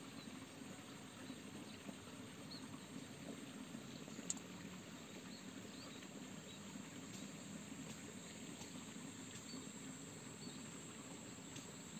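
Faint outdoor ambience: a thin, steady high tone of the insect kind with scattered small high chirps, and a single light click about four seconds in.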